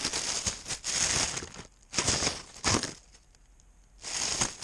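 Crinkly rustling and crunching from a cat moving, picked up right against its body by a GoPro it wears. The noise comes in bursts of about a second, with a quiet spell about three seconds in.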